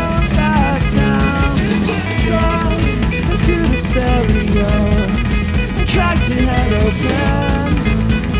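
Full rock band playing an instrumental passage: guitar melody lines moving up and down over drum kit.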